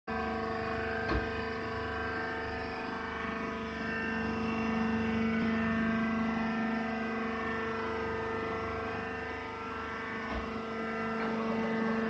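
Hydraulic press baler's power unit running with a steady machine hum. A single sharp knock about a second in, and a dull thump near the end.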